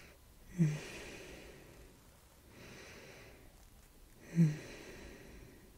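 A person breathing slowly and audibly, a breath about every two seconds, with a short low voiced sound at the start of a breath twice, about half a second in and near the end; these two are the loudest sounds.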